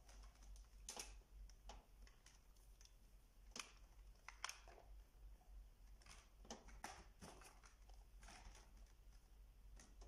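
Near silence: faint, irregular clicks and rustles of handling over a low steady hum.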